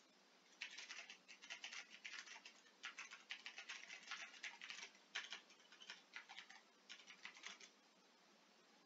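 Faint typing on a computer keyboard: irregular runs of quick key clicks with a few short pauses, stopping shortly before the end.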